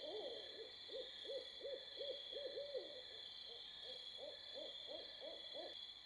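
Faint owl hooting in a rapid run of short hoots, about three a second, breaking off about three seconds in and starting again. Crickets chirp steadily underneath.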